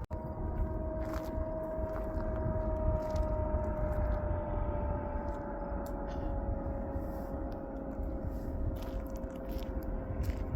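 GE diesel freight locomotives running: a low rumble with a steady whine that slowly drops in pitch.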